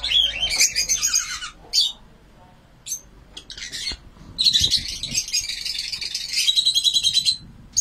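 Lovebirds chattering: rapid, high-pitched squawking chatter in two long bursts, one in the first two seconds and another from about four seconds in until shortly before the end.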